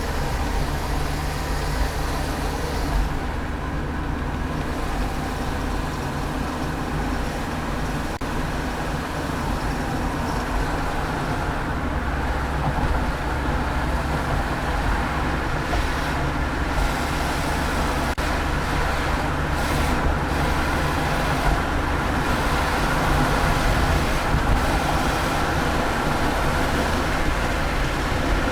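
A 2002 Subaru Outback driving, its engine and road noise running steadily and growing a little louder over the second half.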